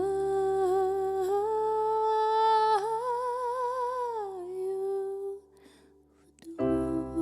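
A singer holds one long sung note over a soft keyboard accompaniment, with vibrato toward its end. The note stops about four and a half seconds in. After a short near-silent pause, keyboard and voice come back in near the end.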